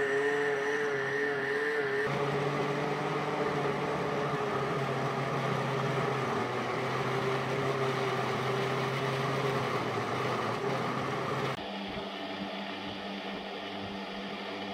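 Electric blender running, blending frozen mango chunks with yogurt and milk into a smoothie. The motor's pitch wavers for the first couple of seconds as the chunks break up, then steadies, and it drops to a quieter hum near the end.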